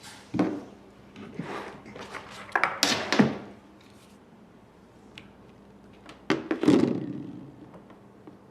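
A series of dull thuds and knocks, loudest about three seconds in and again a little after six seconds, with quiet room tone between.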